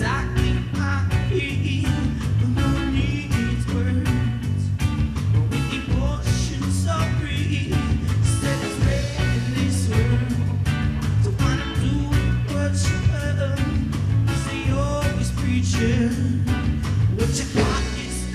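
Live rock band playing an instrumental passage: drum kit keeping a steady beat under electric guitar.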